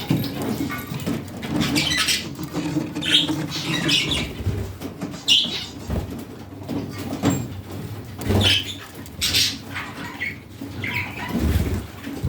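Budgerigars chirping and chattering in short, scattered bursts, over a low background rumble.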